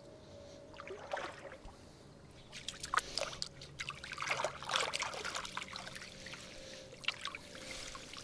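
Irregular splashing and trickling of water from a fishing keepnet as it is worked at the river's edge to release the catch, with a longer run of splashes in the middle.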